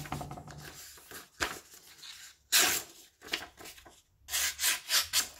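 Sharp knife blade slicing through a sheet of paper held in the hand, a sharpness test: one loud rasping cut about two and a half seconds in, then a quick run of several short cuts near the end.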